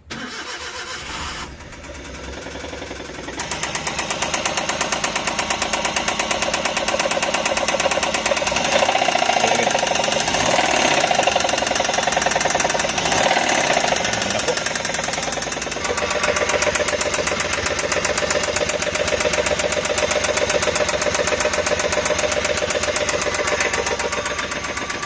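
Suzuki Every DA64V's three-cylinder engine running with a rapid, rhythmic ticking and knocking, loud enough to be heard from a distance; it gets louder about three seconds in and then holds steady. The noise persists even after the owners have spent money on repairs, a sign of a mechanical fault that has not been cured.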